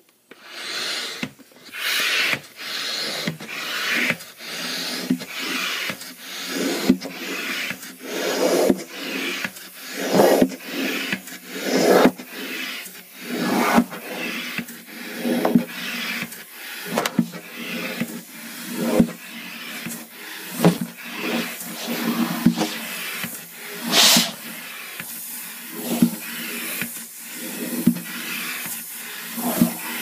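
Hand air pump inflating a large latex balloon: repeated pump strokes about once a second, each a rush of air with a click. One sharper, louder stroke comes late on.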